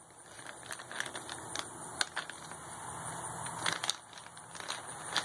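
A small paper parts packet crinkles and rustles in the hands as a new tractor thermostat is worked out of it, with scattered light clicks and ticks.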